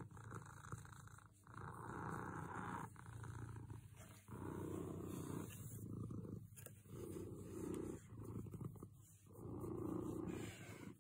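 Domestic tabby cat purring continuously while being stroked under the chin and along the body. The purr rises and falls with each breath in and out, about every second and a half.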